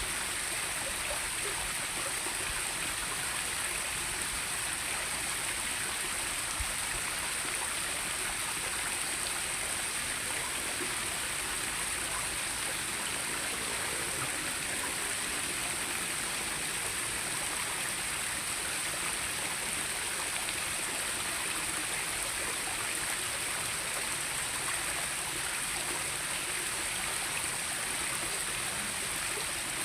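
Steady rushing of running water, an even hiss with a constant high-pitched drone over it, unchanging throughout.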